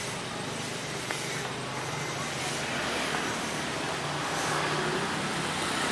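Steady street traffic noise: a hiss of passing vehicles with a low engine hum, growing slightly louder over the last couple of seconds.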